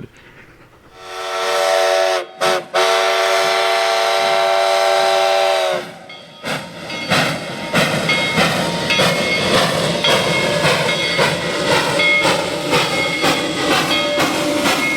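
Denver & Rio Grande Western No. 315, an 1895 Baldwin 2-8-0 narrow-gauge steam locomotive, blows its steam whistle in one long chord-like blast of about five seconds, broken twice briefly near its start. Then its exhaust chuffs in a steady rhythm as it works its freight train, with intermittent high-pitched squeals.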